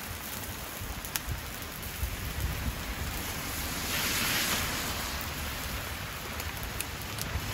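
Steady hiss of rain mixed with a wood fire crackling in a small camp grill, with a few sharp pops and a brief swell of hiss about four seconds in.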